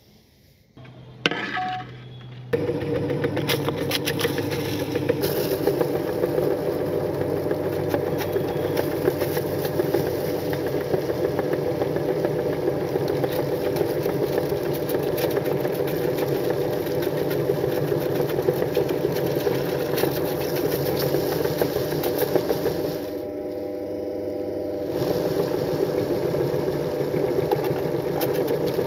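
Motor-driven meat grinder starting up about two seconds in, then running steadily as it grinds crunchy cookies into crumbs, a constant machine hum with fine crackling. The sound drops for a couple of seconds near the end, then resumes.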